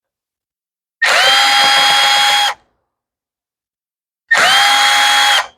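Cordless drill-driver motor spinning in two short bursts, each winding up quickly to a steady whine, as it backs Phillips screws out of a string trimmer's housing.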